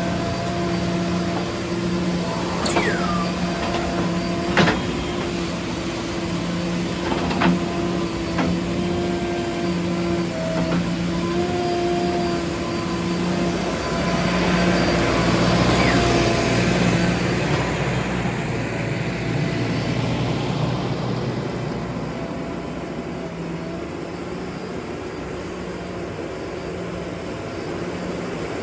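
Heavy diesel engine running steadily at a constant pitch, with sharp knocks about five and seven seconds in and a swell of rushing noise around the middle.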